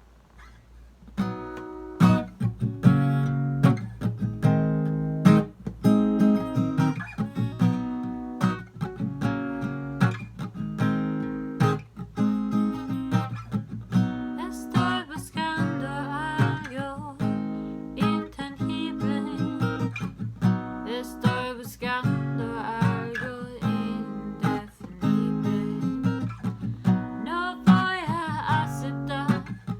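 Acoustic guitar strummed in a steady rhythm, starting about a second in. A voice joins, singing over it, from about halfway.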